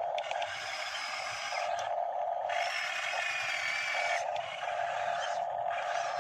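Electric motors of an RC model excavator whining as the boom and arm lift a bucket of mud, the steady mid-pitched whine starting and stopping several times as each control is worked.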